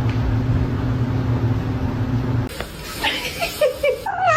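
A steady low hum, then after a cut a person chuckling and, near the end, a cat starting a loud yowl that slides up in pitch.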